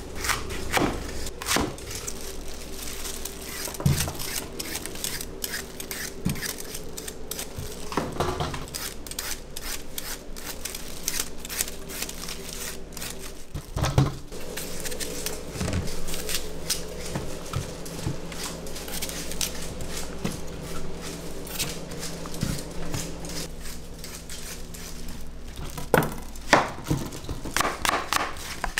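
Kitchen knife cutting apples on a plastic cutting board, with sharp knocks of the blade on the board near the start and again near the end. In between, a hand peeler scrapes the skin off Asian pears, with scattered clicks and a few louder knocks. A steady hum runs underneath.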